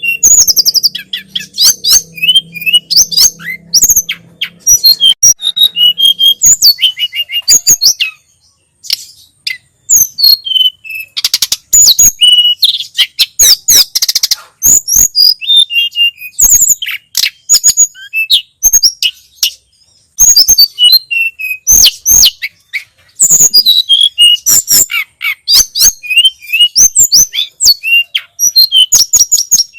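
Tledekan gunung (sulingan gunung) singing loudly: fast strings of high chirps and whistled notes, broken by a couple of brief pauses.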